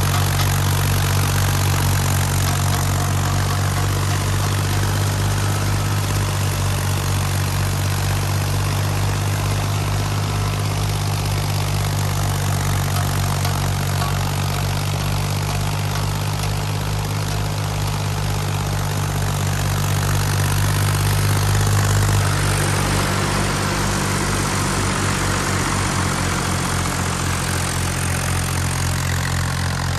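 Fiat 480 tractor's three-cylinder diesel engine running steadily under load, driving a wheat thresher, with a continuous rushing noise over the low engine hum. About 22 seconds in, the engine note drops slightly and pulses more plainly.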